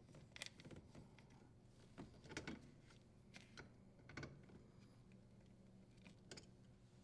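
Near silence with a few faint clicks and taps as a brass water supply elbow fitting is threaded onto a dishwasher inlet valve and gripped with slip-joint pliers.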